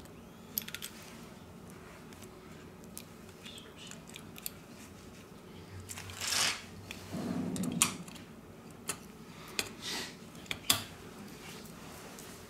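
Steel tweezers ticking and scraping against a smartphone motherboard's metal shields and copper foil, then the board handled and pressed into the phone's frame: scattered small clicks, a longer rustling scrape about halfway, and a few sharp clicks near the end.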